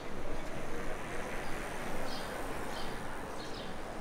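Outdoor town street ambience: a steady wash of background noise with a few faint high chirps.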